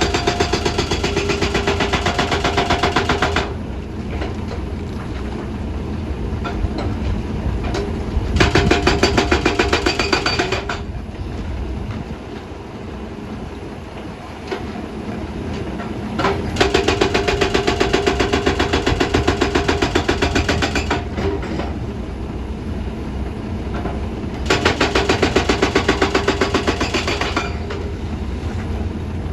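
Excavator's diesel engine and hydraulics working in four spells of heavier load, each with a fast, even clatter and a steady whine, easing back to a lower running note between them.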